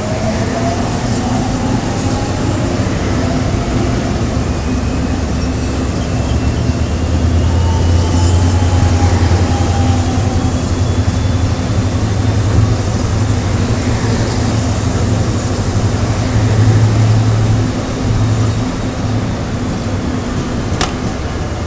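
Korail 311000-series first-batch electric multiple unit pulling out of the station and running past. Its traction motors whine and rise slowly in pitch as it accelerates, over a steady rumble of wheels on rail. A single sharp click comes near the end.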